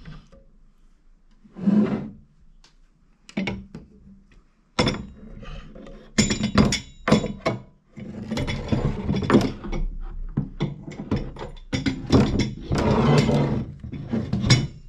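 Monitor holder being put together and fitted to a desk: a run of knocks and clunks as the parts are handled, with longer rattling, scraping stretches in the second half.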